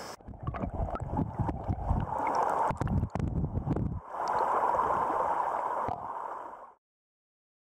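Creek water gurgling and splashing around a camera held at the water among the stream rocks, with uneven surges and a few knocks of handling. It then settles into a steady rush of flowing water that cuts off suddenly a little before the end.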